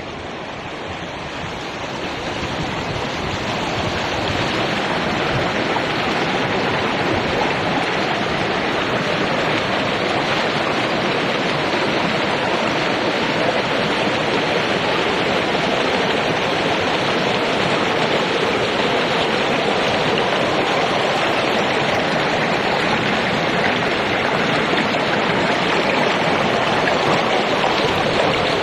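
Rushing river water: a steady, even rush of flowing water that fades in over the first few seconds.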